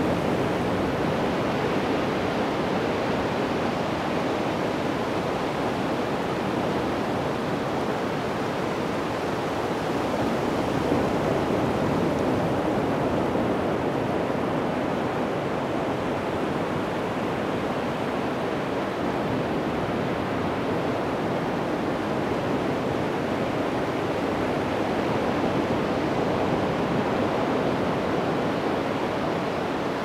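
Atlantic Ocean surf breaking and washing up the beach, a steady rush of wave noise that swells gently now and then.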